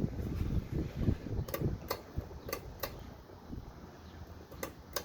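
Hunter Perlman 44-inch six-blade ceiling fan running on high speed: a low rush of moving air that eases after about two seconds, with a handful of sharp, irregular ticks.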